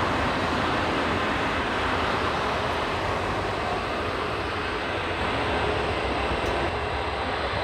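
Airbus A380-841 jet with four Rolls-Royce Trent 970 engines, running at low taxi power as it rolls along the taxiway: a steady jet rumble and hiss.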